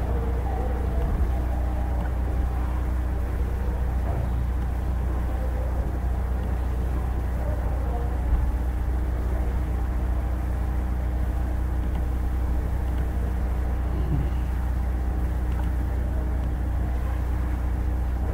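Steady low hum over constant background noise, the room tone of the narrator's microphone, with a single faint click about eight seconds in.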